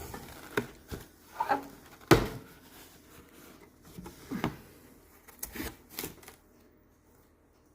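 Cardboard box being opened and handled: rustling of flaps and packing with scattered knocks and clicks, the loudest about two seconds in and a few more between four and six seconds.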